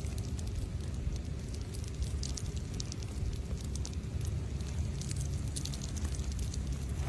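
Steady low rumble of wind and handling noise on the microphone outdoors, with faint scattered crackles.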